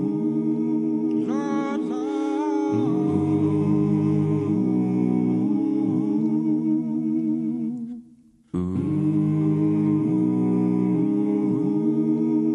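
A male jazz singer's wordless a cappella humming: a steady low held note under sliding, wavering hummed lines. It cuts out for a moment about eight seconds in, then starts again.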